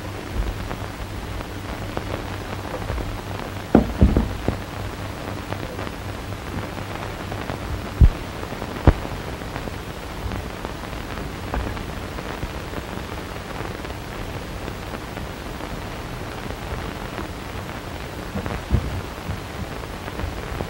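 Steady hiss of an early sound-film soundtrack, with a low hum through the first half and a few sharp knocks, about four, eight and nine seconds in.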